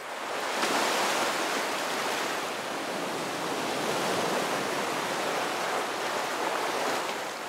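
Sea waves washing on a shore: a steady rush of water that swells every few seconds.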